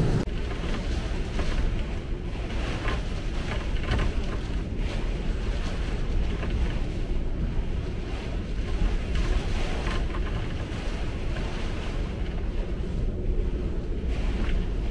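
Hurricane-force wind and heavy rain buffeting a moored sailboat: a steady rush with a low rumble of wind on the microphone, swelling in gusts, and scattered rain hits crackling on the boat's canopy.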